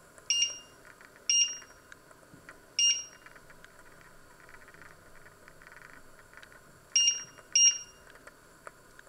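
Electric cooktop's touch-control panel beeping as its timer keys are pressed: five short, high-pitched beeps, three spread over the first three seconds and two more half a second apart near the end.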